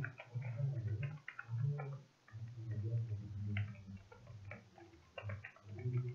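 Typing on a computer keyboard: quick, irregular keystroke clicks, some in fast runs, over a low hum that swells and fades.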